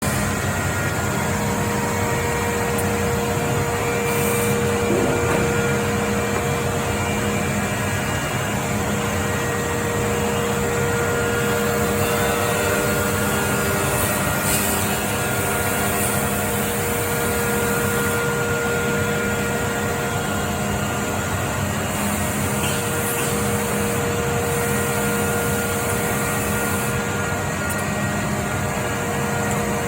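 Weinig Unicontrol 10 CNC woodworking machining centre running: a steady machine drone with several held tones over a dense noise.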